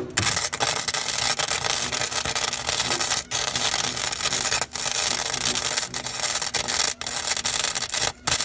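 Welding arc crackling steadily on a vehicle's cross member, with three short breaks in the arc, about three, four and a half and seven seconds in, before it stops shortly before the end. The metal being welded is thin.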